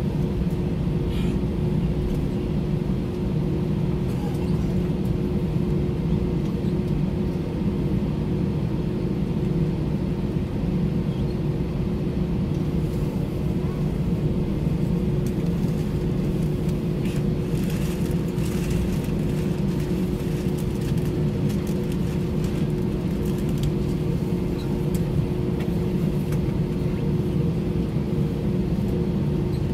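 Cabin noise of an Airbus A319 taxiing, heard from a window seat over the wing: its IAE V2524-A5 engines at low taxi power give a steady low rumble with an even hum, with a few faint clicks midway.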